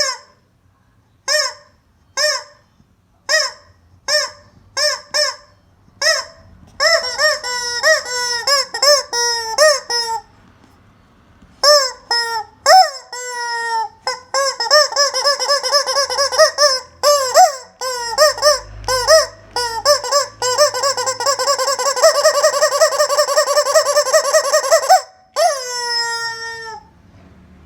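Rubber chicken squeeze toy squawking as it is squeezed: separate squawks about once a second at first, then quicker and quicker squeezes running into a long stretch of rapid squawking, ending with one long squawk that falls in pitch.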